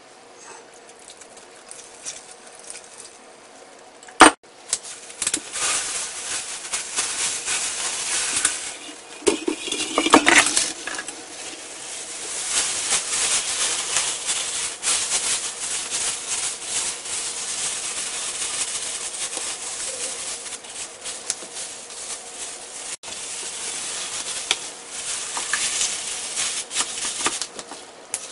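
Thin plastic bag crinkling and rustling as it is gathered and sealed around chicken in marinade. There is a single sharp knock about four seconds in.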